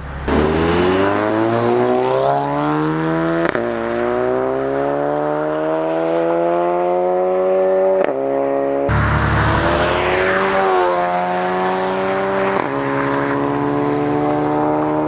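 A tuned turbocharged car accelerating hard at full throttle, its engine pitch climbing through the gears and dropping suddenly at each upshift. The sound changes abruptly about nine seconds in, and the climb starts again.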